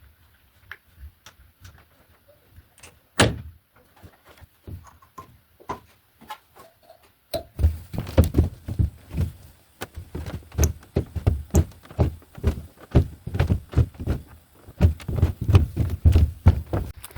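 Knocks and thumps of a metal clamp and a 2x4 being handled against a roof purlin. Scattered light clicks give way to one sharp knock about three seconds in, then from about seven seconds a fast, irregular run of thumps.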